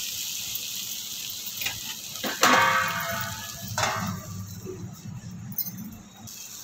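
Besan-coated parwal and potato pieces sizzling in an aluminium kadhai. About two and a half seconds in comes a loud metal-on-metal clank with ringing, and a second clink just before four seconds, as a metal lid is handled and set on the pan. After that the sizzle drops away under the lid.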